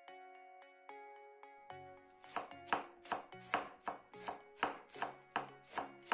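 Kitchen knife shredding cabbage finely on a cutting board, in quick even strokes about two and a half a second, starting about two seconds in. Light background music with chiming notes plays throughout.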